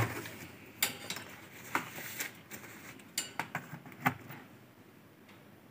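Handling noise on a workbench: a string of light, sharp clicks and clinks, about eight in the first four seconds, then they stop.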